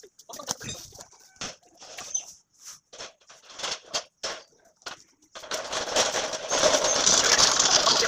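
Short, scattered chirps and clucks of birds and chickens for about five seconds. Then, suddenly, a loud steady scraping rush sets in as a wheeled metal high-jump stand is dragged across the bare dirt ground.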